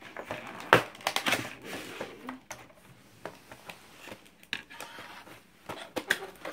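Plastic toy packaging crinkling and crackling as it is handled and cut with scissors to free a doll, with scattered sharp clicks and snips, the loudest about a second in.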